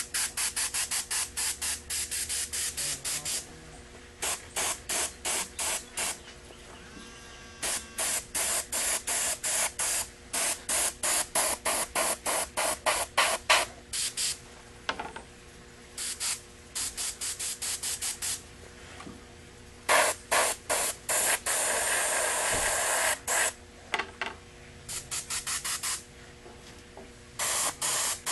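Airbrush spraying paint in rapid short bursts, about four a second, in runs broken by brief pauses, as a coat of orange goes onto a clear RC car body. About three-quarters of the way through, one longer continuous spray lasts about two seconds.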